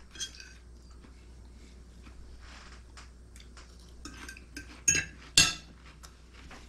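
Cutlery clinking and scraping on plates during a meal: faint scattered taps, then two sharp ringing clinks about five seconds in, half a second apart.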